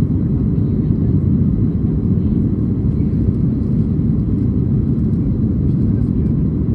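Boeing 737 MAX cabin noise heard inside the cabin during the climb after takeoff: a steady, deep rumble of the CFM LEAP-1B engines and the airflow, with a faint hiss above it.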